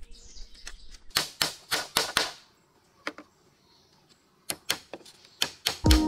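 Hollow knocks of bamboo poles striking one another as they are laid on a treehouse platform. There is a quick run of about five knocks a little over a second in, a pause, then a scatter of further knocks, with music coming in at the very end.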